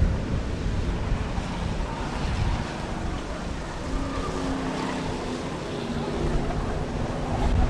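Eight-cylinder stock cars racing around the short track: several engines running together in a dense, steady rumble.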